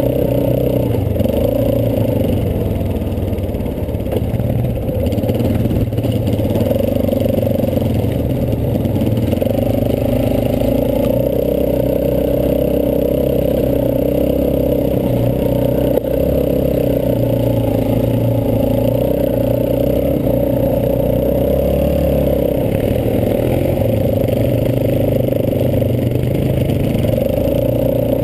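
ATV engine running steadily under way, heard close up from the quad itself, its pitch rising and falling a little with the throttle.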